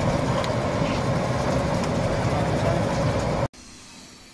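Potato-processing machine running with a loud, steady mechanical hum and a held mid-pitched tone, with faint ticks. It cuts off suddenly about three and a half seconds in, leaving a much quieter background.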